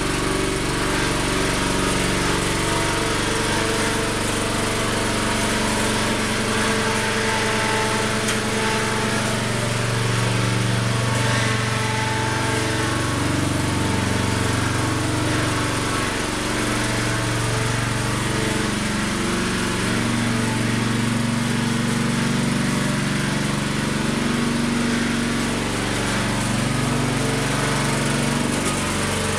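Truxta 4x4 mini dumper's small engine running steadily under load, its pitch rising and falling a little as the laden dumper is driven along.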